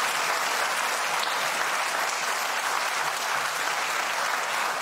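Studio audience applauding steadily, interrupting the guest mid-sentence.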